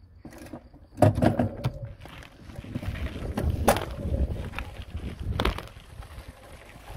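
Bicycle rolling over a bumpy dirt and gravel track: tyre noise and rattling of the bike, with wind buffeting the handlebar-mounted phone's microphone. Three sharp knocks from bumps stand out, the first about a second in.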